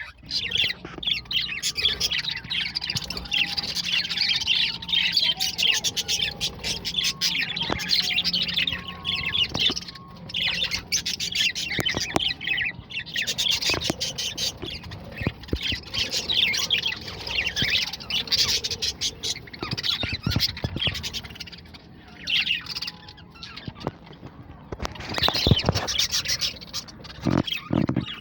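A colony of budgerigars chattering and squawking together, a dense, continuous mass of short high calls with brief lulls.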